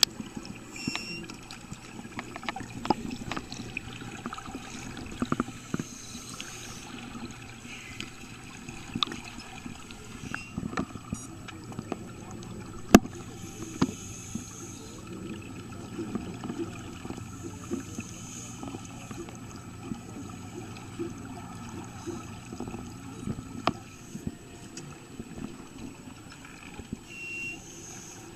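Underwater sound in a swimming pool: scuba divers' regulators and exhaled air bubbles gurgling, with scattered sharp clicks and knocks, the loudest about 13 seconds in. A steady low hum runs under it and stops about 23 seconds in.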